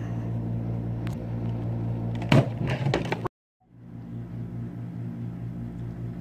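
A steady low hum with two sharp clicks about two and a half and three seconds in. The sound cuts out briefly just after the clicks, then the hum carries on.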